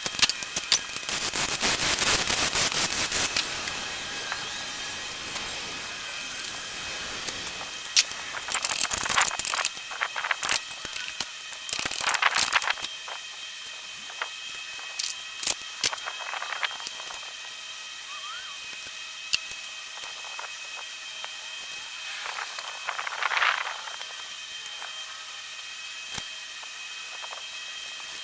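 Hand tools and metal engine parts being handled during an engine teardown: scattered clicks and clinks, with noisy rattling and scraping stretches near the start, around nine and twelve seconds in, and again around twenty-three seconds.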